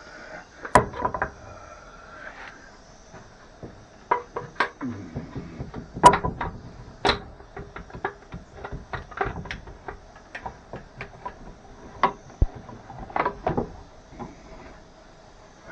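Irregular knocks and clacks of boards and woodworking clamp parts being handled and set in place, some sharp and loud, the strongest about a second in and about six seconds in.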